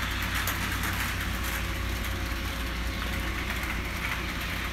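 Hornby OO gauge BR Standard Class 9F model locomotive running along the track: a steady whirr of its small electric motor and the rolling rumble of its wheels on the rails, over a constant low hum.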